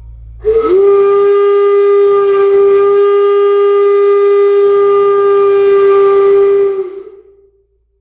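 Black 5 steam locomotive whistle with two knife edges and a long, thin chamber, blown on compressed air. It sounds one long, steady, deep note with an airy hiss for about six seconds, catching with a short glide at the start and dying away near the end.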